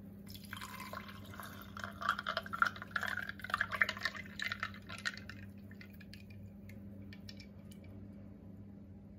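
Lime juice poured in a stream over ice cubes into a glass mug, splashing for about five seconds, then a few last drips as the pour tails off.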